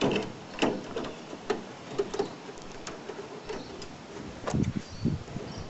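Irregular sharp clicks and taps of gutter mesh being folded and pressed down onto a corrugated iron roof, with a couple of duller thumps about four and a half seconds in.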